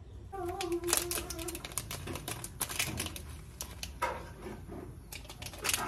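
Stainless steel cooking pot and utensils being handled: a clatter of metal clanks and clicks, with a short metallic ring about half a second in.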